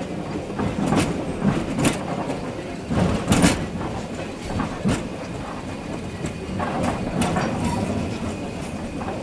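Train running along the track, heard from the driver's cab: a steady rumble with a sharp clack every second or two from the wheels on the track.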